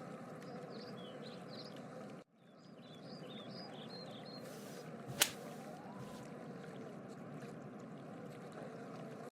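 Faint steady background ambience with small high chirps, cut off briefly about two seconds in and broken by a single sharp click about five seconds in.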